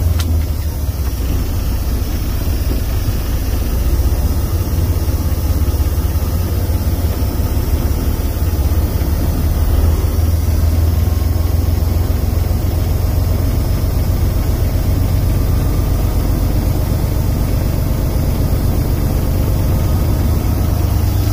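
Semi truck's diesel engine running steadily at low revs, heard from inside the cab. The low, even sound holds without any revving up or down.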